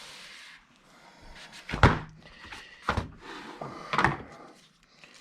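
Cardboard keyboard box being opened and handled: a short scrape at the start, then three knocks and thumps about a second apart, the loudest about two seconds in, with lighter clicks between.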